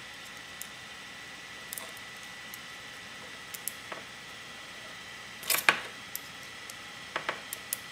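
Scattered small clicks and clinks of a hand tool and metal parts while screws are worked out of a PMI Piranha R6 paintball gun's trigger frame. The loudest cluster comes a little past halfway, with a few more near the end, over a steady faint hiss and a thin high whine.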